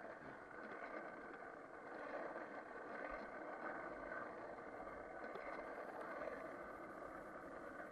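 Skateboard wheels rolling on rough asphalt as the board is pushed along, a steady rolling noise heard through an action camera's built-in microphone.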